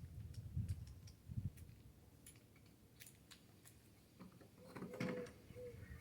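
Faint scattered clicks and light knocks of hand work on the boat's fittings, with a low cooing bird call starting near the end.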